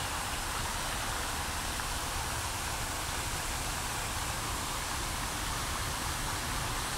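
Fountain water splashing steadily, a ring of arching jets and a tiered centre fountain falling into the basin, with a low rumble underneath.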